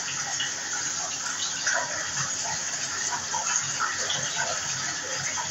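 Bath tap running, water pouring into the bathtub in a steady gush.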